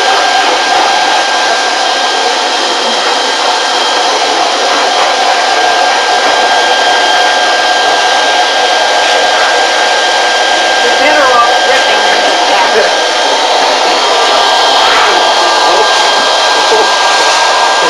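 Blow dryer running steadily on a dog's wet coat after its bath: an even, loud rushing with a thin steady whine in it.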